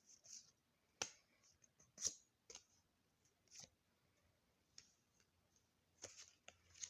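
Pokémon trading cards being handled: a few sharp clicks and light taps, the two loudest about one and two seconds in, with quiet between.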